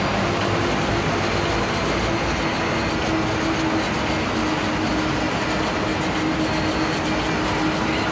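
Steady engine and road noise heard from inside a vehicle's cabin as it drives, with a constant droning hum.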